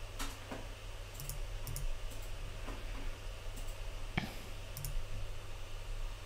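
Computer mouse clicks, about eight scattered short clicks with the loudest about four seconds in, over a steady low electrical hum.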